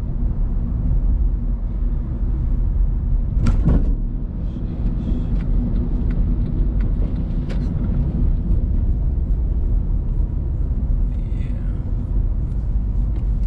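Steady engine and road rumble inside the cabin of a moving Honda sedan, with a single short thump about three and a half seconds in.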